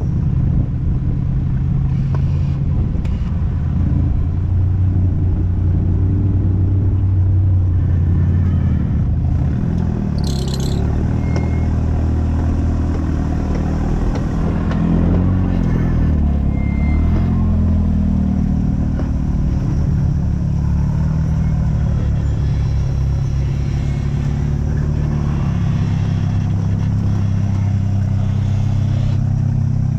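Off-road vehicle engine running under way, its pitch rising and falling with the throttle, with a brief high squeak about ten seconds in.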